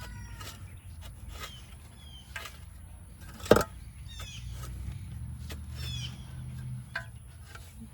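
Shovel digging and scraping through loose raised-bed soil, a series of short knocks with one sharp, much louder knock about halfway through. Small birds chirp a few times, and a rooster's crow trails off at the very start.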